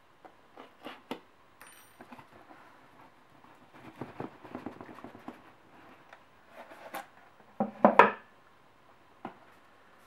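Cardboard product box being handled and its lid lifted off: light scrapes and taps, a stretch of rubbing about four seconds in, and two louder knocks just before eight seconds.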